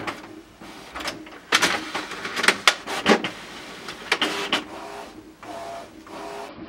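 Desktop printer pulling a sheet of sticker paper in from its rear feed tray: a run of irregular mechanical clicks and short motor whirs as the sheet is drawn down into the printer.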